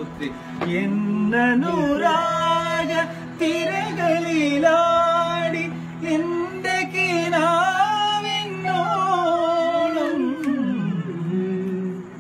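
Harmonium holding steady drone notes under a voice singing long, sliding, ornamented phrases. The singing falls away near the end, leaving the harmonium.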